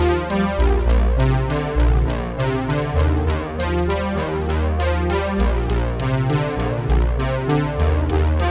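Background music: electronic track with a steady beat, synthesizer chords and a bass line.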